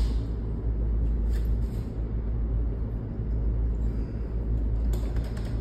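Steady low rumble of background noise, with a few faint clicks from the scooter's handlebars being handled, about a second and a half in and again near the end.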